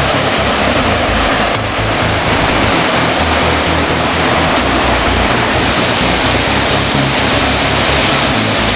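Steady rushing of a gorge waterfall, with music playing beneath it.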